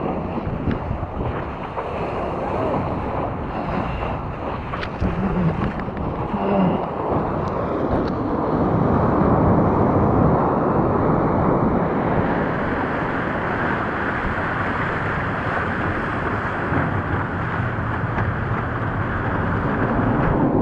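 Wind buffeting the microphone over rushing water: a steady noisy wash that grows a little louder about eight seconds in.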